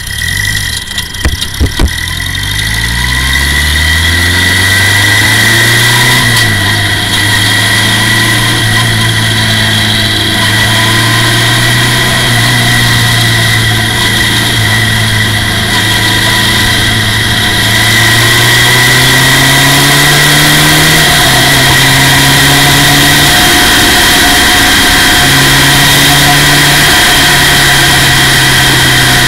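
Formula Ford race car's engine heard from the cockpit. A few knocks sound in the first two seconds while the engine pulls up from low revs, its pitch climbing over the first few seconds. It then runs at steady high revs, with small rises and dips in pitch later on as the throttle changes. A steady high whine runs alongside.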